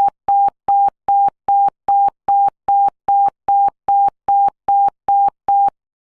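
Rapid electronic alert beeps from a mock emergency alert: a single steady tone pulsed about two and a half times a second, each beep with a faint click at its edges. The beeping stops near the end.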